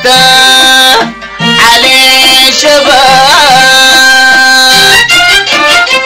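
Music from a Sudanese song recording: a string ensemble playing long held melodic phrases, with a short break about a second in.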